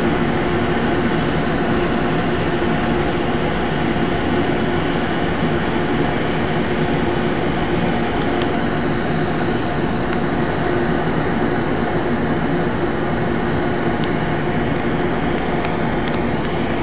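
Steady city din: a continuous roar of distant traffic mixed with the constant hum of rooftop air-conditioning machinery.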